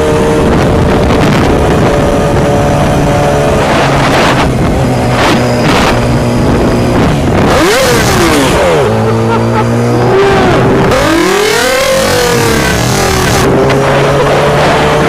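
A car engine running loud and hard, its pitch holding steady at first, then swooping down and up several times in the middle as it revs, and climbing slowly near the end.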